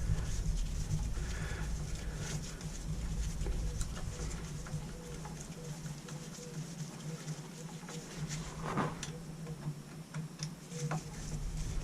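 Scattered light clicks and taps of small plastic and metal parts and hand tools being handled while a strimmer is put back together, over a steady low hum.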